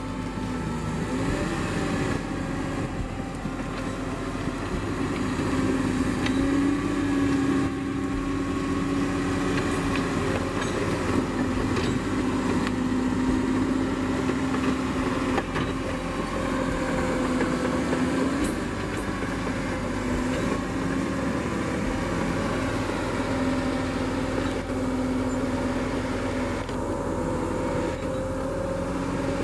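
John Deere 850 crawler dozer's diesel engine running steadily as the machine works, its pitch dipping slightly and recovering a few times.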